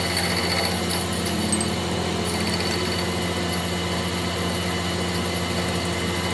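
A workshop machine running with a steady hum, its pitch unchanging.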